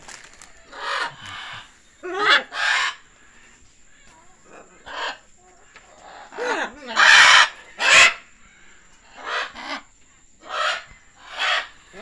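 Young scarlet macaws giving about a dozen short, harsh squawks in irregular succession, the loudest a little past the middle.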